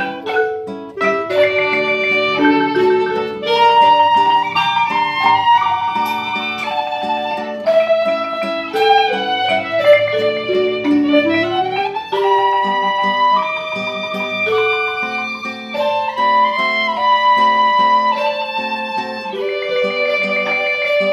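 Instrumental music led by plucked strings, a busy melody of quick notes with a sliding pitch about eleven seconds in.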